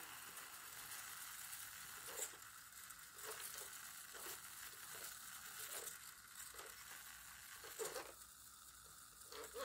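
Near silence: faint room tone with a few soft, irregular ticks.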